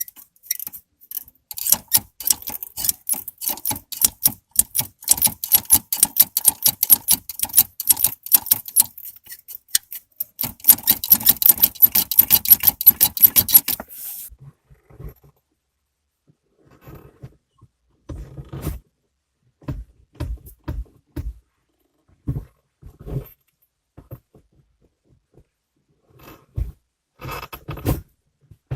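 Gear shift lever of a Chevrolet Lacetti rattling and clicking rapidly as it is worked back and forth, the sound of play in the lever. About halfway through the rattling stops, and a series of short, lower creaks and knocks follows.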